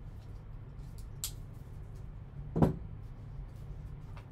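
Gloved hands handling a cardboard trading-card box: a light click about a second in and a single solid knock a little past halfway, over a steady low hum.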